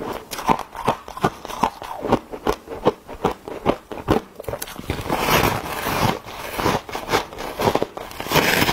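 Refrozen freezer frost being bitten and chewed: a run of crisp crunches and crackles, turning denser and louder about five seconds in.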